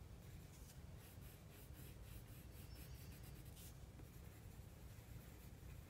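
Faint scratching of a colored pencil lightly shading on paper, in quick short strokes that stop a little over halfway through.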